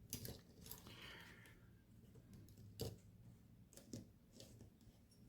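A few faint, sparse clicks of small plastic LEGO pieces being handled and set down, the clearest about three seconds in.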